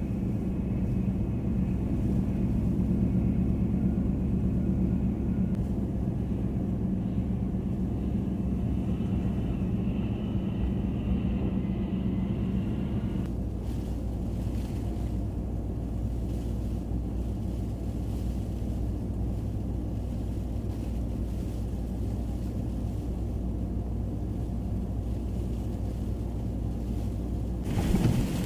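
Steady cabin rumble of a four-wheel-drive vehicle driving through deep snow: engine and tyre noise with a low hum that eases about halfway through. Near the end it gives way to a short louder rush.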